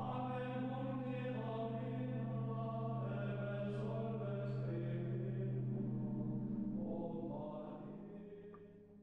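Sung chant: a slow, unaccompanied-style melody over a held low drone. It fades out over the last two seconds.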